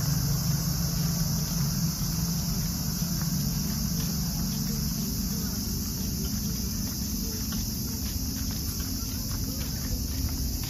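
Steady high-pitched chorus of cicadas, with a low rumble fading out over the first couple of seconds and light footsteps on paving near the end.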